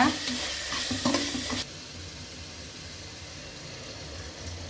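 Onion-tomato masala sizzling in hot oil in a pressure cooker. The sizzling cuts off suddenly about a second and a half in, leaving only a faint low hum.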